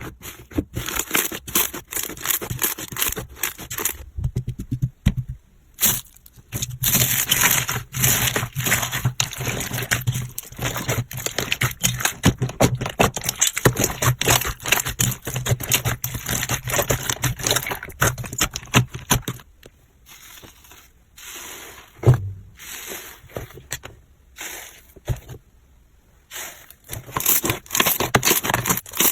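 Slime being squeezed and pressed by hand, giving a dense run of crackling and clicking that stops briefly several times.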